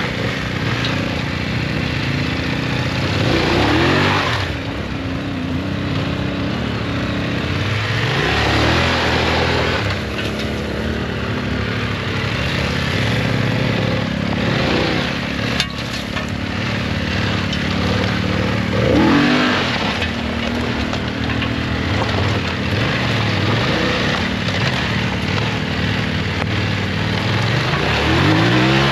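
Motorcycle engine under way, its pitch rising under throttle and dropping back again and again as the rider accelerates and changes gear.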